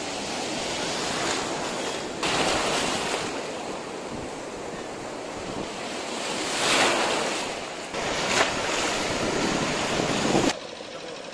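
Sea surf: waves breaking and foam washing through shallow water, swelling with each wave and stepping abruptly louder or softer a few times.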